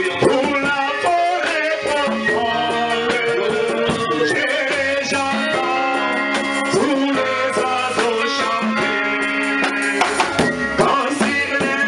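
Live worship music: a man singing into a microphone over held instrumental chords, with a shaker rattling steadily in time.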